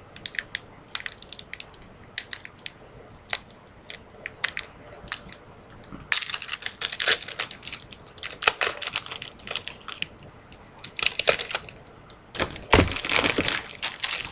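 A 2013 Leaf Draft football trading-card pack wrapper being torn open and crinkled. Scattered light clicks and rustles come first, then louder bursts of crinkling about halfway through and again near the end.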